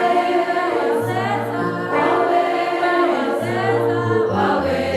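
Church worship team singing a Swahili praise song in harmony, holding long sung notes over a steady low bass line.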